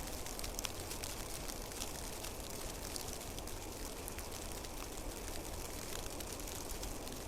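Snowstorm ambience: a steady hiss of falling snow with many small, irregular ticks over a low rumble.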